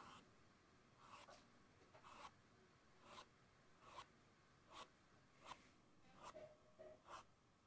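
Faint swishes of a paintbrush dragging short strokes of acrylic paint across a canvas, about one stroke a second, a few coming in quick pairs.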